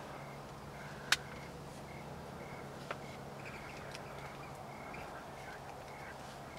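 Quiet outdoor ambience: a faint high chirp repeats about twice a second over a steady low hum. A sharp click comes about a second in, and a softer one near three seconds.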